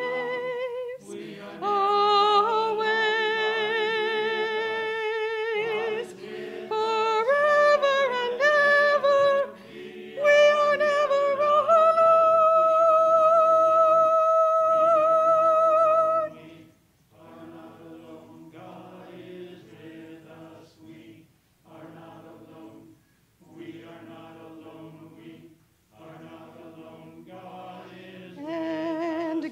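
Small church choir singing an anthem: loud sustained notes with vibrato, dropping to a soft passage about halfway through, then swelling again just before the end.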